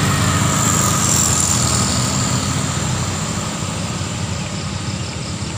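Traffic engines climbing a steep hill: motorcycles and a small van pulling up the grade under load, a steady engine hum that slowly fades.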